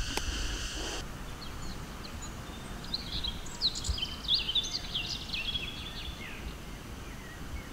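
Outdoor ambience. A steady, high insect drone stops abruptly about a second in, and small birds then chirp and twitter in a lively run through the middle, over a faint background hiss.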